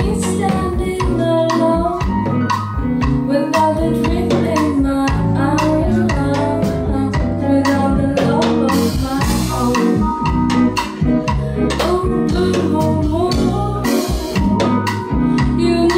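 Live band playing a song: a woman singing into a microphone over drum kit, electric bass, electric guitar and keyboard.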